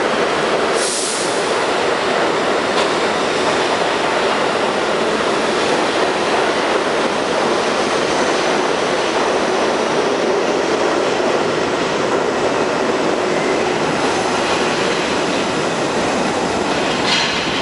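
New York City Subway R32 train running out of the station: a loud, steady rush of wheel and rail noise, with a brief sharp clack about a second in and another near the end.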